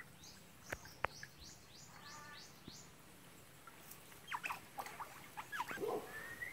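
Asian small-clawed otters chirping and squeaking. First comes a quick run of about eight short, high, falling chirps, then a louder cluster of squeaks ending in a rising squeal as the otters meet the pug puppy. Two sharp clicks come about a second in.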